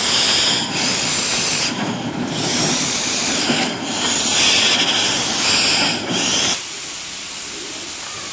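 Barclay saddle-tank steam locomotive No. 22 hissing loudly with escaping steam in uneven surges. The hiss cuts off abruptly about six and a half seconds in, leaving a quieter steady hiss.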